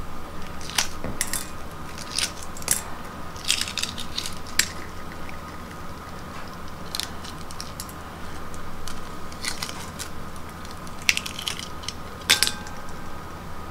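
Shell of a hard-boiled egg being cracked and peeled off by hand over a ceramic bowl: scattered crackles and small clicks in bunches every second or so as the shell breaks and comes away.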